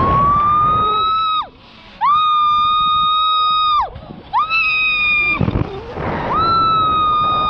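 A person giving four long, high-pitched whooping cries in flight, each held on one note for one to two seconds and dropping away at the end. Wind rumbles on the microphone in the short gaps between cries.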